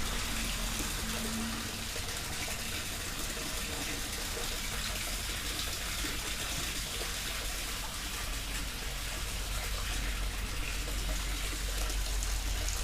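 Steady rush of running water, with a low hum underneath.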